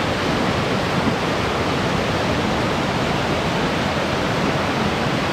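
River rushing below a footbridge: a steady, loud roar of fast-running water.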